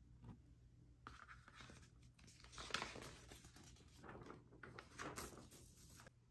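Faint rustling and scraping of a record inner sleeve being handled as a vinyl LP is slid into it, with louder scrapes about three and five seconds in.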